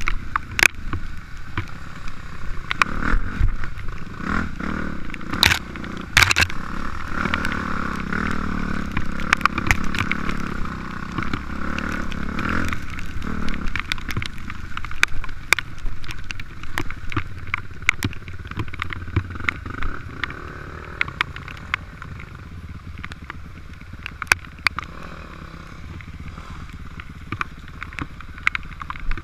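Dirt bike engine running at speed along a rough wet trail, with frequent clicks and knocks from the bike going over roots and rocks. The engine gets quieter in the last several seconds as the bike slows.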